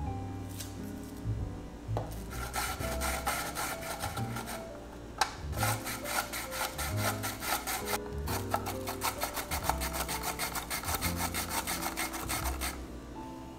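Red onion pushed back and forth over a mandoline slicer's blade, a rapid scraping stroke several times a second. It starts about two seconds in, pauses briefly twice and stops shortly before the end. Soft background music plays underneath.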